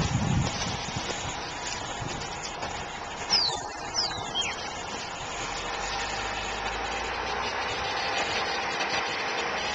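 A motor vehicle's engine running steadily, with two short high-pitched squeals that fall in pitch about three and four seconds in.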